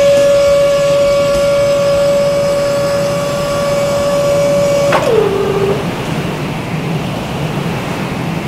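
Lift platform motor sound effect: a steady machine whine over a low rumble. About five seconds in, the whine drops in pitch and dies away, and the rumble carries on.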